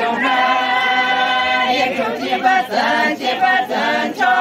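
A group of women singing a traditional Yimkhiung Naga song together, unaccompanied. They hold one long note, sing a run of shorter notes, and start another long held note near the end.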